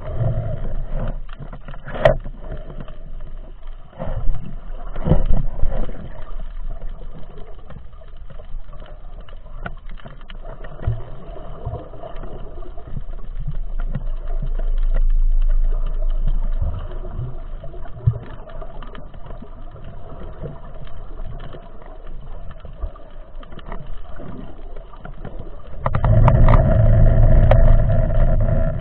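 Muffled underwater sound picked up by an action camera in its waterproof housing on a speargun: a steady low hum with scattered knocks and clicks, strongest about two and five seconds in, and a louder rushing rumble for the last few seconds.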